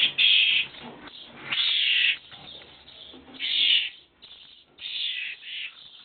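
Nestling birds calling: a series of high-pitched calls about half a second each, coming roughly every second and a half, the loudest near the start.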